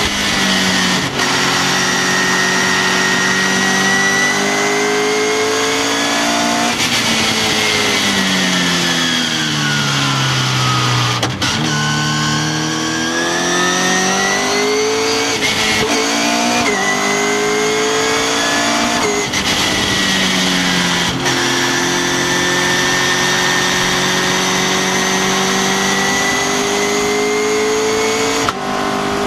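Westfield sports car's engine heard onboard under hard driving. Revs are held high, then fall steadily for several seconds off the throttle, then climb again with a few quick breaks at gear changes, and settle high again for the rest.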